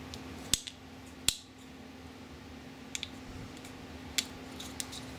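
Sharp clicks of 3D-printed plastic parts as a tea-light cap is pressed and worked onto its base over a paper-clip contact: two clear clicks about half a second and just over a second in, then a few fainter ticks.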